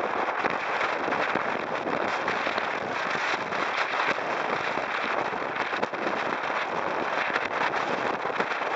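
Wind buffeting the microphone and water rushing past a Hobie catamaran under sail, with a dense, steady crackle.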